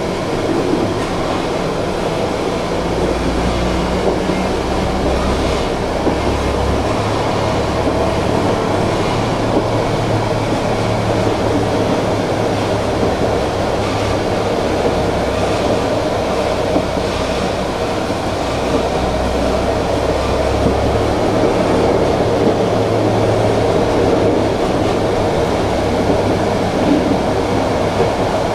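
Tram running along the track, heard on board: a steady rumble of wheels on rails with a low motor hum that comes and goes.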